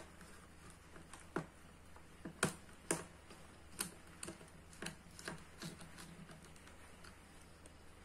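Irregular light clicks and taps as hands work red control wires into the terminals of a contactor and its neighbouring circuit breaker, the plastic housings and wire ends knocking now and then, about eight to ten times with the sharpest pair around the middle.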